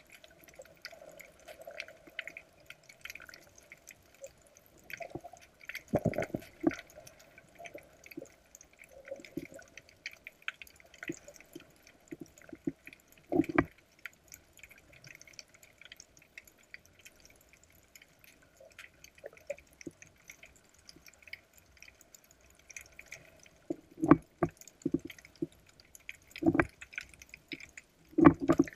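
Underwater sound heard through a camera's waterproof housing: faint water noise and crackle, broken by scattered clicks and a few louder knocks, the strongest near the middle and again towards the end.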